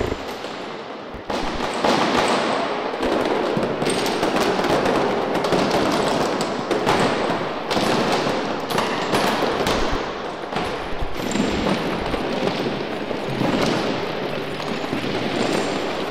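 Dense crackling noise made of many small rapid clicks and pops. It grows louder about a second in and then runs on steadily.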